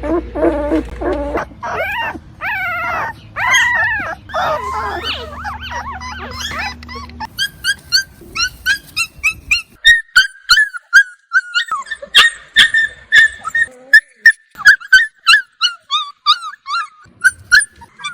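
Dogs whining and crying: long, wavering whines that rise and fall in pitch for the first several seconds, then a quick run of short, high-pitched whimpers, several a second, from about halfway through.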